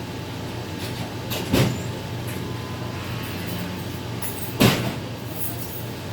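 Steady low background hum broken by two short, dull thumps about three seconds apart, the first about a second and a half in.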